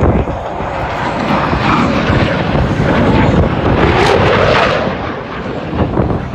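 F-16 jet fighter making a low pass, its engine noise building to a peak about four seconds in and then dropping in pitch as it goes by.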